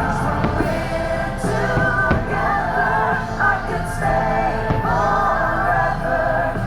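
Music with singing voices, a choir-like chorus over a steady accompaniment.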